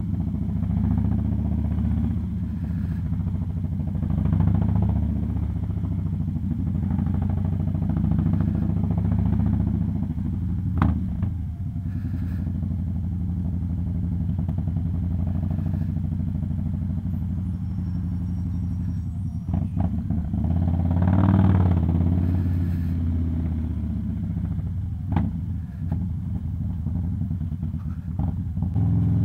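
Harley-Davidson Dyna Low Rider S's air-cooled V-twin engine running at low speed, a steady deep rumble that swells with the throttle a few times. A few brief sharp clicks cut through it.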